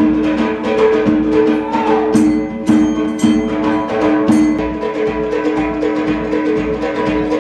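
Rhythmic percussion music: fast, even drum strokes under held tones, with a few bright ringing strikes between about two and four and a half seconds in.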